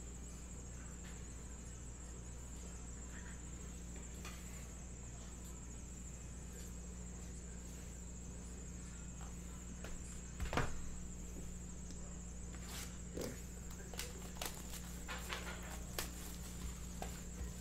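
Low steady electrical hum with a faint high whine, then from about halfway a scatter of knocks and taps, the loudest just past halfway: handling noise on the table as the stacked boxes of baseball cards are reached for.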